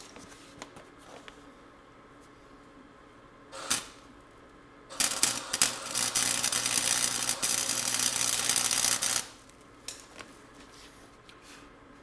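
Welding arc tack welding a bolt onto a steel bracket: a short spurt about three and a half seconds in, then a steady crackling and hissing arc for about four seconds that cuts off sharply.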